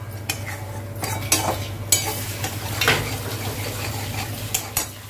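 A spatula stirring and scraping a thick spiced masala around a metal kadai, with irregular scrapes against the pan over a steady frying sizzle. The masala is being fried down on high heat until the oil separates.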